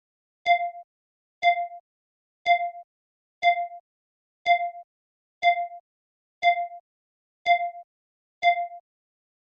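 Countdown timer sound effect: a short electronic beep once a second, nine times, each starting with a sharp click and fading quickly, marking the final seconds before the timer runs out.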